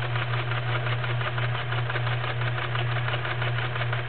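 Kenmore model 1525 sewing machine stitching steadily through five layers of denim: a steady motor hum under a fast, even clatter of needle strokes.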